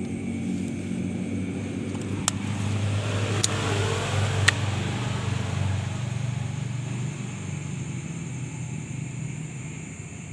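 A motor vehicle passing by: a low engine hum and tyre noise that swell to a peak about halfway through and then fade away. Three sharp clicks sound over it in the first half.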